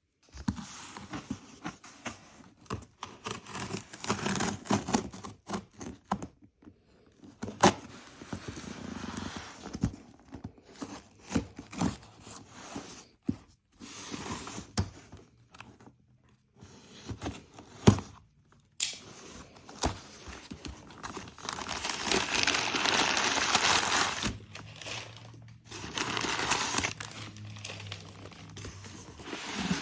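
Toy packaging being handled and opened: cardboard and plastic crinkling and tearing, with irregular knocks, clicks and scrapes and one sharp knock about two-thirds of the way through.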